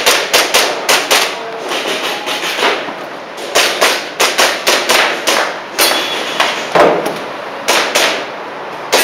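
Airsoft pistol firing in quick strings of sharp cracks, several a second, with short pauses between strings as the shooter moves between targets.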